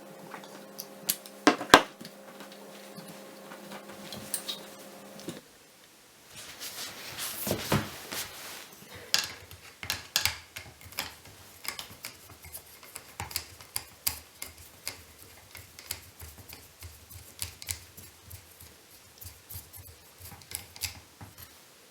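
Small metal parts and tools clicking, tapping and clinking at irregular intervals during hands-on motorcycle carburettor work. A steady hum runs underneath and cuts off about five seconds in.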